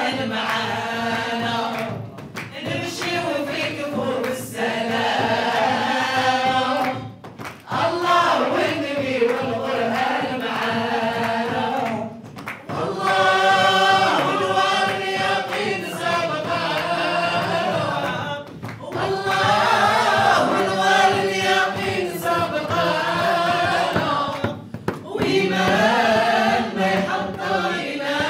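A group of men and women singing together through microphones, in phrases of several seconds broken by short pauses.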